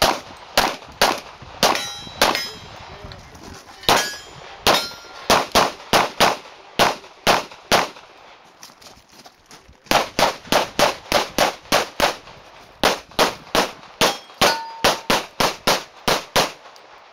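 Handgun fired rapidly in quick strings, dozens of shots in all, with a pause of about two seconds near the middle. Several shots are followed by a short metallic ring from steel targets being hit.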